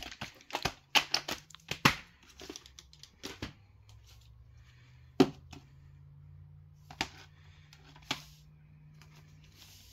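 Plastic video cases being handled on a hardwood floor: a quick run of clicks and knocks as a case is opened and moved, then a few single clacks as cases are picked up and set down.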